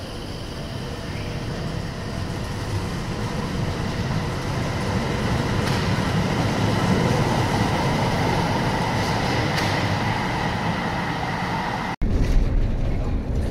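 Tyne and Wear Metrocar pulling out of an underground platform. Its running rumble and a faint whine grow louder over the first several seconds as it gathers speed past the platform. Near the end the sound cuts suddenly to the steady running noise heard inside a moving road vehicle.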